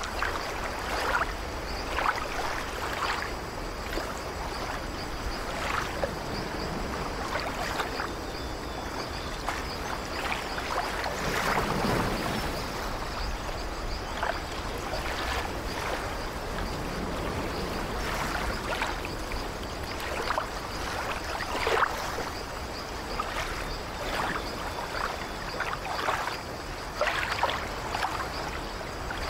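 Ocean surf breaking against rocks: a steady rush of water with frequent splashes every second or two. A heavier wave breaks about twelve seconds in.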